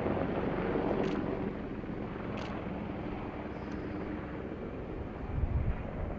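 Boeing AH-64 Apache attack helicopter in flight: the steady drone of its twin turboshaft engines and rotor, slowly growing fainter.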